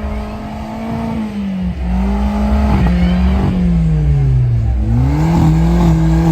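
Car engines being revved hard and repeatedly, their pitch climbing and dropping again and again. A deep steady rumble joins in about two seconds in.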